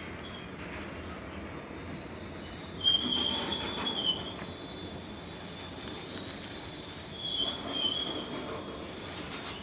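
Railway wagons rolling slowly along a platform with a steady rumble, their wheels squealing in high thin tones twice: for about a second starting three seconds in, and again briefly about seven and a half seconds in.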